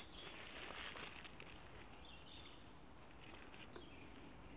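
Near silence: faint outdoor background hiss, with one soft click about four seconds in.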